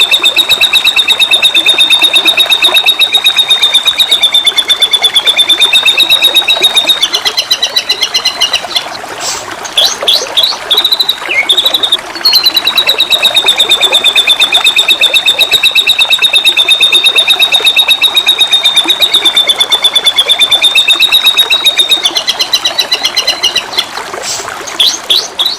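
White-rumped shama (murai batu) singing a long, rapid trill at a steady pitch, broken about eight seconds in and again near the end by short varied whistled phrases before the trill resumes. Flowing water hisses steadily underneath.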